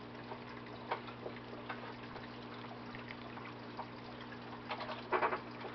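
Water trickling and dripping through an aquarium algae scrubber's drain, over a steady low pump hum, with scattered small ticks. A brief crackle of handling comes about five seconds in.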